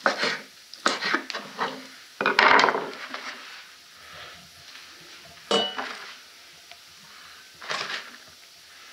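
Pot and utensil handling as pieces of raw tripe are put into a metal cooking pot: a run of short scrapes and knocks, the loudest about two and a half seconds in, and a ringing metal clink about five and a half seconds in.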